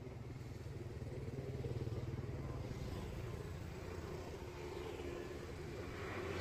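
A motor vehicle's engine running steadily, with a low hum that gets a little louder about two seconds in.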